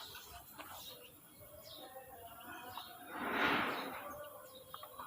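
Birds chirping faintly in short scattered calls. About three seconds in, a louder rushing noise swells and fades over roughly a second.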